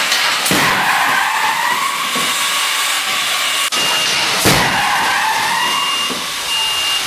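Side-impact crash of a moving barrier into a 2011 Toyota Prius: a sharp crash, then a long screech that falls and rises again as the struck car's tyres are shoved sideways across the floor. The crash and screech come twice, the second crash the loudest, over a steady loud hiss.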